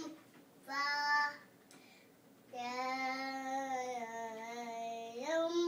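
A toddler singing: a short note about a second in, then a long held note that steps up in pitch near the end.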